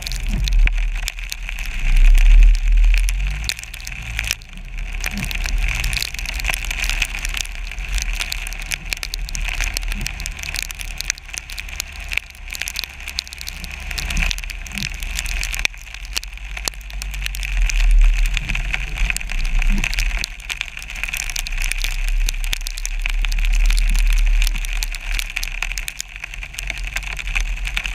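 Wind rumble and road noise from a moving car, picked up by a camera mounted on its hood, with a dense patter of freezing rain ticking on the camera housing. The low rumble swells and fades with gusts.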